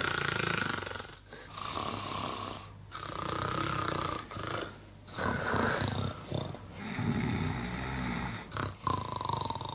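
A person snoring in a series of long snores, about seven in a row, each one to one and a half seconds long with brief pauses between.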